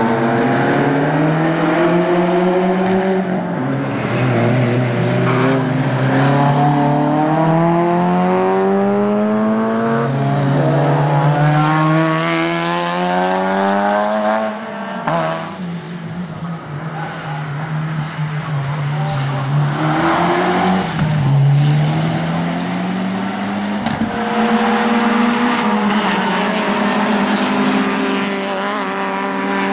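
Race car engines accelerating hard, their pitch climbing through each gear and dropping at every upshift, as cars pass one after another.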